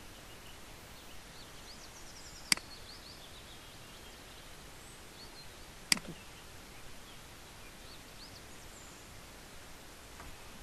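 Two sharp computer-mouse clicks about three and a half seconds apart, over a steady low hiss with faint bird chirps.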